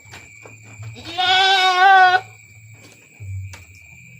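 A goat bleats once: a single wavering call lasting just over a second, starting about a second in.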